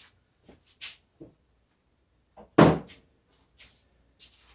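Tools and small parts being handled and set down: a few light clicks and knocks, then one loud thunk about two and a half seconds in.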